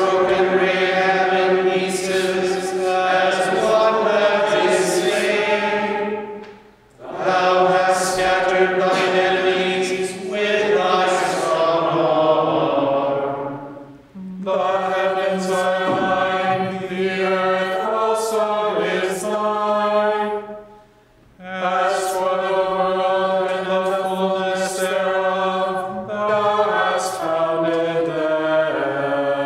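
Voices chanting a psalm in unison to a Gregorian psalm tone, the words sung mostly on one reciting pitch. There are four phrases, each ending in a brief pause for breath.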